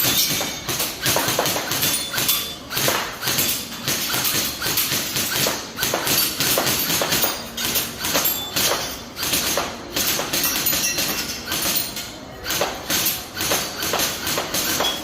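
Battery-powered airsoft BB guns firing in rapid, irregular strings, with plastic BBs clinking and pinging off metal targets.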